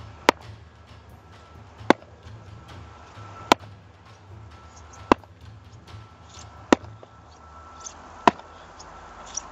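Sledgehammer blows on a reinforced concrete kerb of 32 MPa ready-mixed concrete: six sharp strikes, about one every second and a half, while the kerb begins to crack under them.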